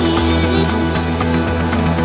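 Background music with sustained tones over a steady bass line.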